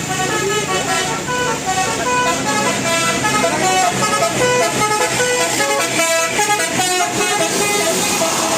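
Bus telolet horn of the 'Basuri' type playing a fast melody of short stepped notes, over the low rumble of the bus.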